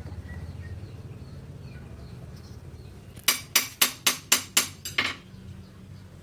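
A hand hammer striking steel on an anvil: seven quick ringing blows, about four a second, starting a little past the middle. A steady low hum runs underneath.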